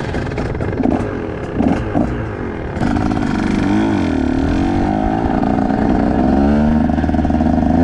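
KTM 125 single-cylinder two-stroke dirt bike engine, revved in two short blips about a second and two seconds in. It then pulls away at low speed, its pitch rising and falling with the throttle and climbing near the end.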